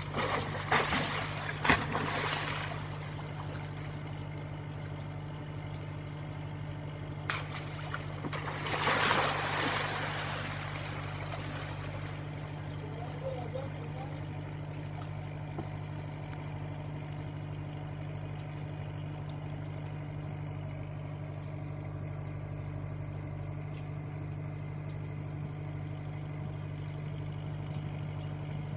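A boat's engine idling steadily underneath, with loud water splashing in the first couple of seconds as a large groper strikes bait at the surface, and more splashing about eight to ten seconds in.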